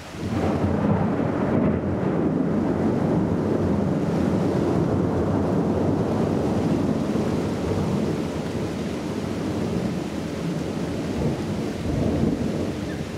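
Thunder rumbling: a sudden, loud onset that rolls on for many seconds, eases off after about eight seconds and swells again briefly near the end.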